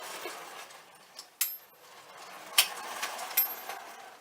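Marx No. 400 wind-up toy locomotive running on tinplate track, its clockwork motor whirring and clicking, while its built-in bell gives three sharp dings with a thin high ring.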